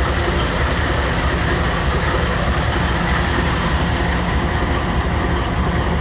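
GE diesel-electric freight locomotive idling steadily while the train stands still, a constant low engine rumble.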